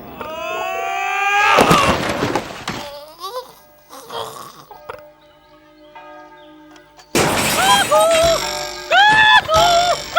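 Cartoon soundtrack: sliding pitched sounds with a crash about two seconds in, a quieter stretch, then loud music of short, bending notes from about seven seconds on.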